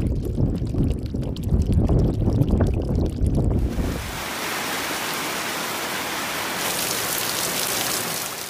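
A low, gusting rush of noise for about the first four seconds, then the steady hiss of heavy rain, which grows heavier about two-thirds of the way through.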